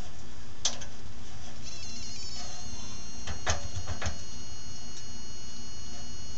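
A few sharp metallic clicks as a wrench is worked on the bolts in the steel base of an old Craftsman radial saw, over a steady low hum. A faint high whistle-like tone wavers in about two seconds in and then holds steady.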